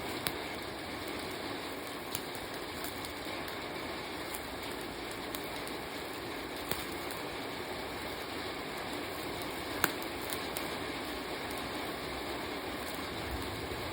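Meat grilling over a wood fire: a steady sizzle with a few sharp crackling pops, the loudest about ten seconds in.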